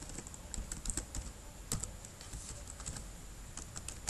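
Computer keyboard typing: a run of irregularly spaced key clicks.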